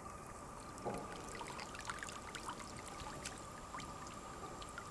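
Alligator working a snapping turtle in its jaws: faint, wet, scattered clicks and crackles of the shell and water at its mouth over a steady hiss.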